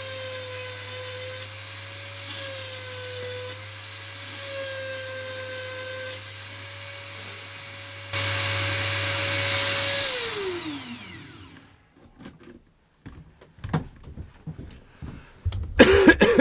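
Dremel rotary tool grinding a chainsaw chain's cutters: a steady high whine that dips a little under load. About eight seconds in it grows louder, then it is switched off and winds down with a falling pitch. A few light clicks follow.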